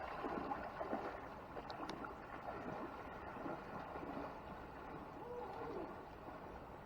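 Floodwater sloshing and swishing around a person's legs as he wades through it, an irregular ongoing splashing that is a little louder in the first couple of seconds.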